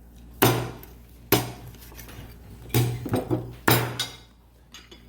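Kitchenware knocking: four or five sharp, heavy strikes, roughly a second apart, each with a dull thud under it.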